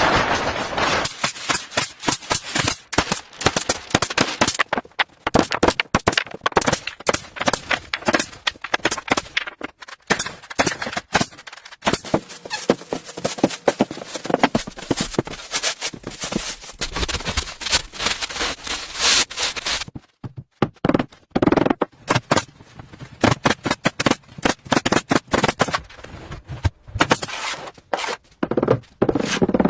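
Rapid, irregular sharp taps, clicks and scrapes of handcraft work on a miniature model, coming in quick runs with a brief pause about two-thirds of the way in.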